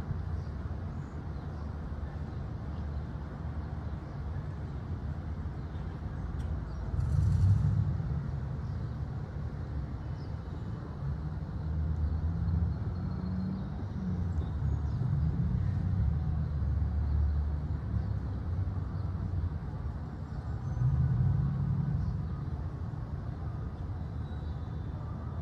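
Outdoor background rumble, low and unsteady, swelling and fading several times, loudest about a third of the way in.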